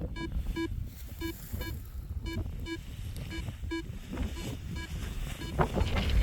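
Paragliding variometer beeping in short, evenly pitched beeps, about two to three a second, which means the glider is climbing; the beeps stop about five seconds in. Wind rushes over the microphone throughout.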